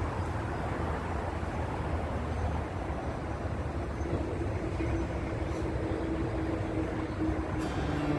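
Steady rumble of distant road traffic, with a faint steady hum joining about halfway through.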